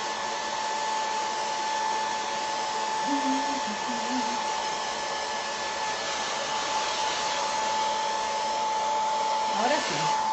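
Handheld hair dryer running steadily, a constant blowing hiss with a steady whine, drying fresh paint on a ceramic piece.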